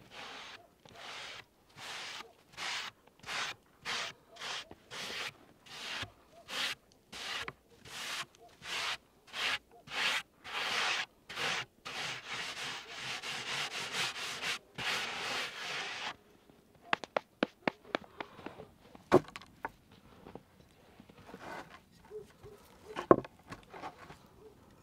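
Back-and-forth scraping strokes by hand, about two a second, that run together into a steady rasp before stopping. A scatter of sharp clicks and knocks follows, two of them loud.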